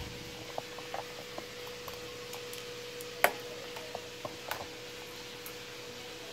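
Scattered light clicks and taps from handling at the workbench, the sharpest about three seconds in, over a steady faint hum with a thin steady whine.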